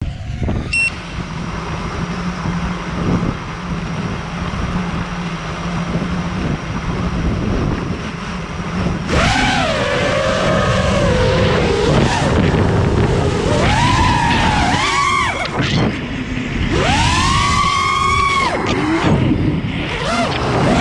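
FPV freestyle quadcopter's brushless motors and propellers. For the first nine seconds there is a steady low hum under a rushing noise. Then a whine rises and falls repeatedly with the throttle, in several sweeping swells.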